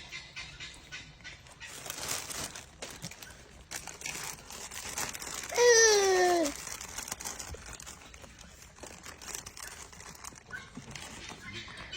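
Crinkling and rustling, with one loud voice-like sound about halfway through, falling in pitch over about a second, likely a young child's drawn-out cry.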